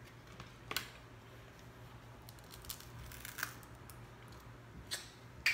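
Faint crackling and a few sharp clicks as boiled snow crab shell is picked apart by hand to get at the meat, the clearest cracks about a second, three and a half, and five seconds in. A steady low hum runs underneath.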